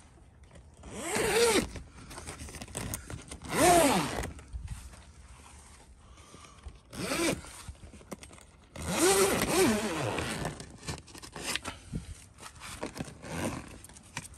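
Zipper on the door of a small walk-in greenhouse's mesh-reinforced plastic cover, pulled in four main strokes over about ten seconds. Each pull is a short zip that rises and falls in pitch, with lighter scraping and rustling of the cover between pulls.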